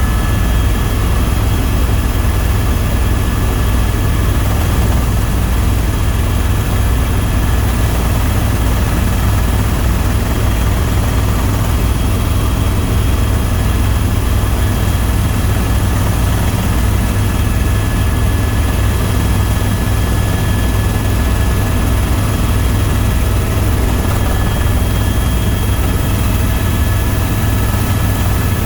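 Tour helicopter in flight: a steady, loud low rotor and engine drone with a thin, constant high turbine whine above it.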